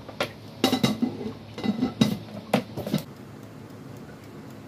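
Cookware clattering: about four groups of sharp knocks and clinks, some ringing briefly, over the first three seconds, then quiet.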